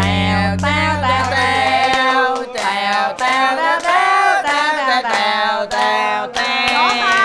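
Music with singing: a sung melody over held low notes, which drop out about two seconds in.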